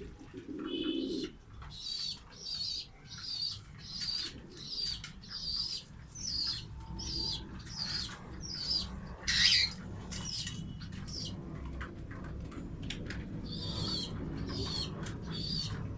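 Pet birds calling: a short low pigeon coo near the start, then a steady run of short high chirps, about two a second, with one louder burst about nine seconds in.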